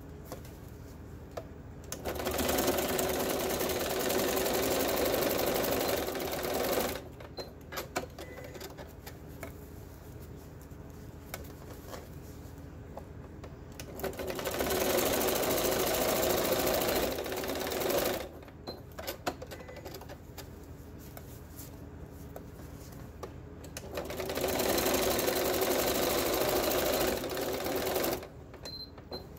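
Janome electric sewing machine stitching in three short runs of about four to five seconds each, sewing quarter-inch seams across the folded corners of a fabric box. Short clicks and handling sounds come between the runs as the piece is turned.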